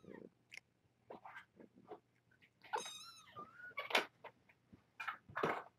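Cat meowing once about three seconds in, among light rustling and sharp clicks and knocks, the loudest of them about four seconds in.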